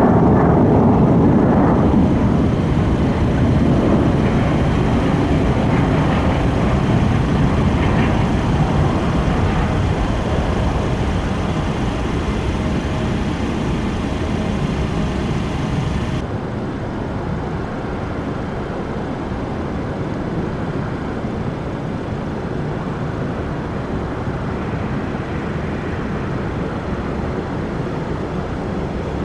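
Airliner jet engine noise, loud at first and slowly fading as the aircraft moves away. About halfway through it cuts to a quieter, steady engine noise.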